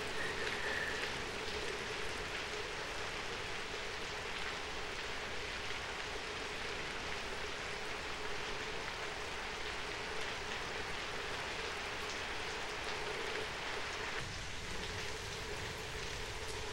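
Steady rain falling, an even hiss that holds constant throughout, with a faint steady hum underneath.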